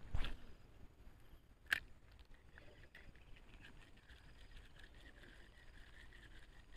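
Handling noise: a heavy bump just after the start and a single sharp click a little under two seconds in. After that comes a faint, steady high-pitched chirring over quiet background.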